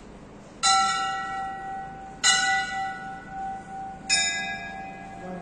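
Temple bell struck three times, about a second and a half apart, each stroke ringing on and slowly fading; the last stroke is slightly lower in pitch.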